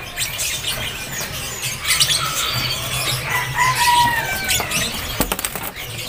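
Caged songbirds fluttering their wings against the perches and bars, with short chirps and a few whistled notes from many birds, the whistles clearest around the middle.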